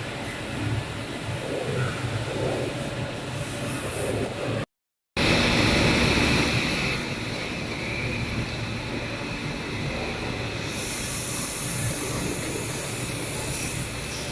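Semi-automatic laser tube cutting machine running: a steady mechanical drone with hissing. A brief dropout about five seconds in, after which the hiss is louder, and a high-pitched hiss joins in near the end.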